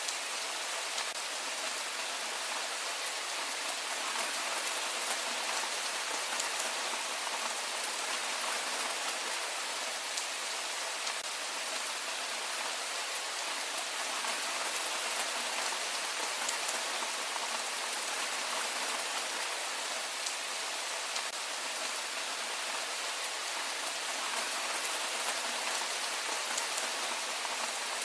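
Heavy rain falling steadily, a dense even hiss sprinkled with the ticks of individual drops.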